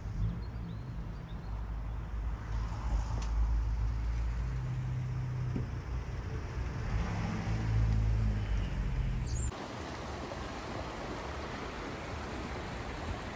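A low, uneven rumble that stops abruptly about nine and a half seconds in, followed by the steady rush of a shallow river running over stones.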